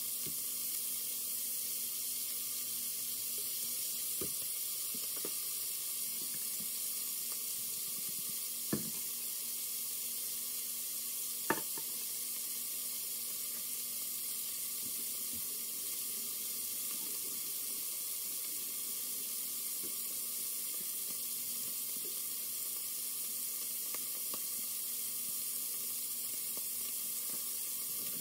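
Cubes of beef chuck searing in hot fat in an enamelled Dutch oven: a steady sizzle, with two sharp pops at about nine and twelve seconds in.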